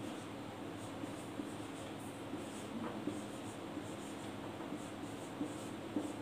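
Whiteboard marker writing on a whiteboard: faint, short strokes and scratches as letters are drawn, over a steady low room hum.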